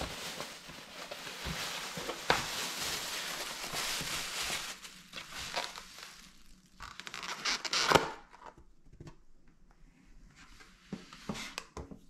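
Thin plastic carrier bag rustling and crinkling as a foam takeaway box is pulled out of it, followed by scattered clicks and a louder sharp crackle about eight seconds in as the box's clamshell lid is opened.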